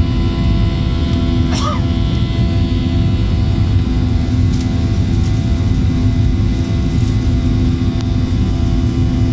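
Cabin noise of a Boeing jet airliner climbing just after takeoff: the turbofan engines running at climb power give a steady loud roar with a low rumble and several steady humming tones.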